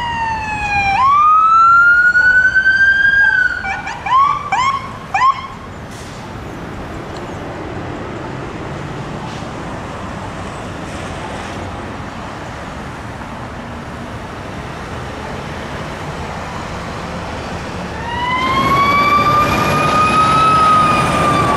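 An ambulance siren wails down and back up, then gives a few quick rising whoops. About twelve seconds of steady traffic noise follow. Near the end a fire engine's siren climbs and holds a long, slow wail.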